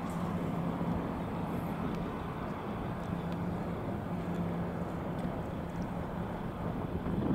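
Steady roadside ambience: a low rumble of distant traffic with a faint steady hum, and wind on the microphone picking up near the end.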